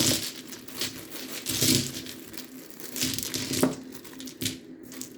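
Packing material crinkling and rustling by hand in several irregular bursts, the loudest at the start, as wrapped stones are dug out of a box.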